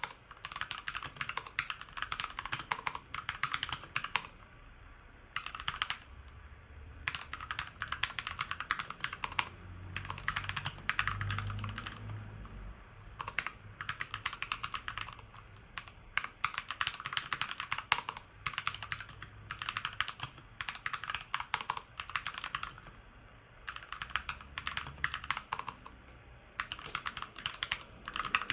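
Typing on a Keychron K2 V2 mechanical keyboard fitted with new Keychron keycaps: quick runs of key clicks broken by short pauses.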